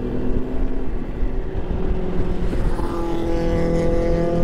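Riding a Yamaha Xmax scooter at road speed: steady low wind and road rumble on the microphone with an engine drone, whose pitch rises gently and which grows louder from about three seconds in.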